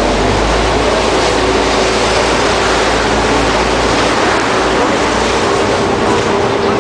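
Steady drone of a boat's engine under way, with a constant rushing hiss over it and a low rumble.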